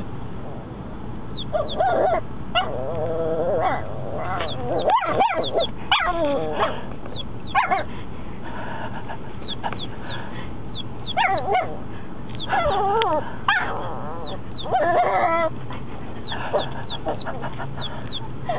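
Four-month-old Chihuahua puppy giving her first barks: many short yips, whines and small barks in bursts, some drawn out and wavering in pitch. A steady low hum runs underneath.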